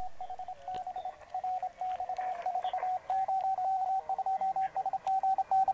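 Morse code (CW) on the 20-metre band from a Yaesu FT-817ND transceiver's speaker: a single high tone keyed on and off in dots and dashes over faint band hiss. The pitch steps up slightly about three seconds in.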